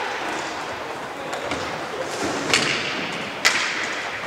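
Inline hockey play: two sharp knocks of stick and puck, about a second apart, ringing briefly in the hall, over a steady hiss of skate wheels rolling on the rink floor.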